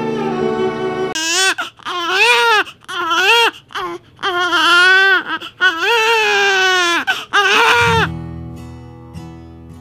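Newborn baby crying: a run of about seven high wails, each rising and falling, with short breaks between them, starting about a second in and stopping about eight seconds in. Soft music fades out just before the crying, and acoustic guitar music comes in near the end.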